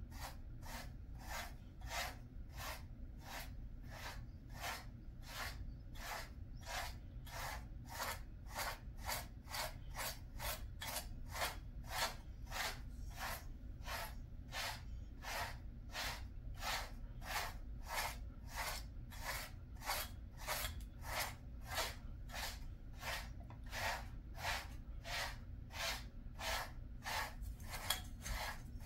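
Slicker brush drawn through a Jindo dog's coat in steady, even strokes, about two a second, over a low steady hum.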